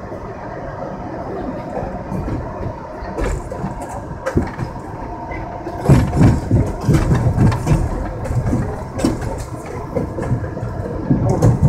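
R62A subway train running on elevated track: a steady rumble of wheels on rail with clicks and knocks at rail joints and switches. The knocking gets heavier and louder from about halfway through.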